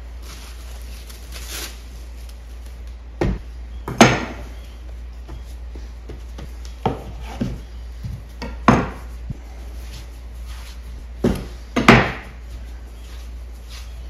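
Chef's knife blade knocking against a wooden cutting board as it cuts through soft dough: about seven sharp knocks at uneven intervals, the loudest about four seconds in and near the end.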